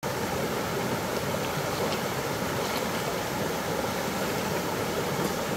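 River water flowing steadily over rocks in a shallow stream.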